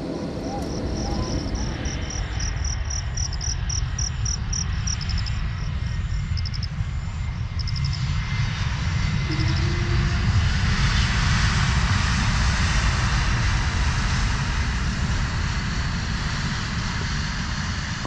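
Jet airliner engines: a low steady rumble that swells about eight seconds in to a loud rushing noise, as of a plane on its takeoff roll. A rapid run of high chirps sounds over the first few seconds.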